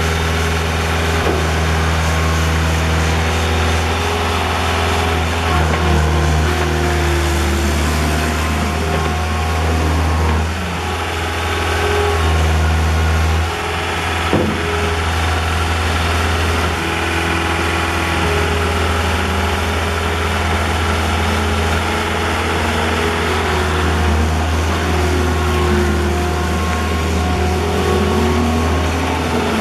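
John Deere 323D tracked skid steer loader's diesel engine running steadily, its note shifting briefly as the machine works, with one sharp knock about fourteen seconds in.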